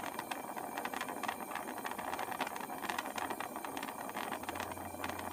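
Gas torch flame burning steadily under a wire mesh trivet, a constant hiss with fine crackle, firing enamel on a copper piece. A low hum joins about four and a half seconds in.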